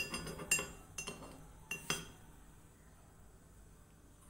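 A spoon clinking a few times against the cups of a kuzhi paniyaram pan while ghee is spooned in, then falling quiet about two seconds in.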